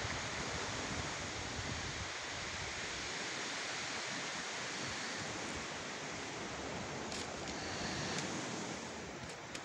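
Steady wash of sea surf and wind, with wind buffeting the microphone as a low rumble in the first couple of seconds; a few faint high ticks near the end.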